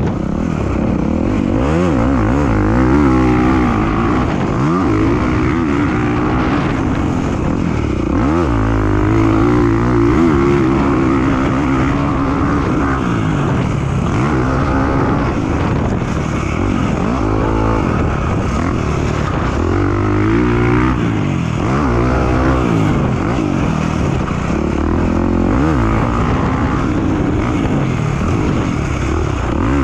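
Dirt bike engine on a motocross track, heard from a helmet camera, revving up and dropping back again and again every couple of seconds as the rider accelerates and shuts off the throttle through the corners.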